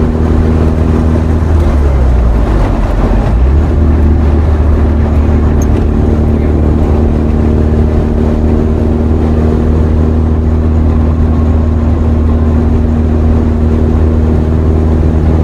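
Motor vehicle running while driving: a steady low engine drone with road noise. About two seconds in, the engine note dips briefly, then climbs back and holds steady.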